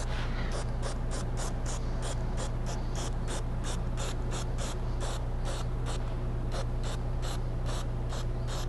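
Aerosol can of spray adhesive fired in rapid short squirts, a pulsing hiss about four times a second, over a steady low hum.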